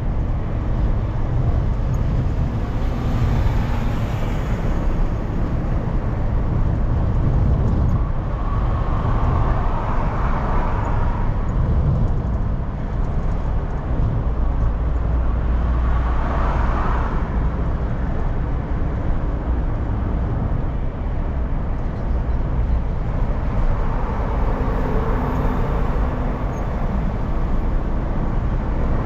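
Car cabin sound while driving: steady low engine hum and tyre-on-road noise, with a few rising and falling swells of noise.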